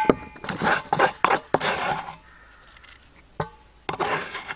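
A spoon scraping chili paste into a stainless steel bowl of raw beech mushrooms. Two metal clinks, each with a brief ring, come at the start and about three and a half seconds in, between rustling scrapes.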